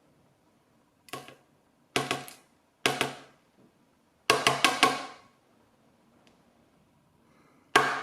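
Short groups of sharp, slightly ringing knocks, one to four at a time, about once a second: a gutted euro lock cylinder being knocked on to free a pin still stuck inside it.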